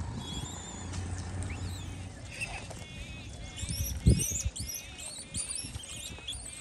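Small birds chirping and twittering in quick, high, repeated calls, with one dull thump about four seconds in.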